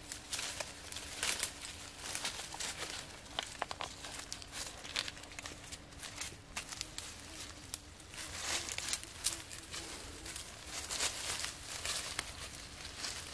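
Dry leaf litter crackling and crunching under bare feet, in irregular bursts of crinkling as the feet walk and shift about.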